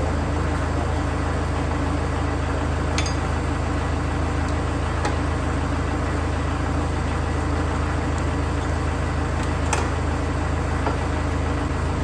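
Tractor engine idling steadily, with a couple of sharp metallic clicks, one about three seconds in and one near the end.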